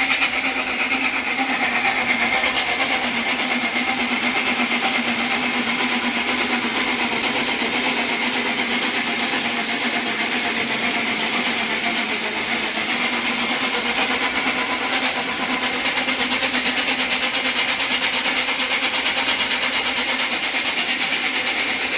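Belt-driven 230 V AC motor of a multi-purpose workshop machine running steadily while its drill bores into a workpiece, a constant mechanical whir with a steady low hum and a high whine.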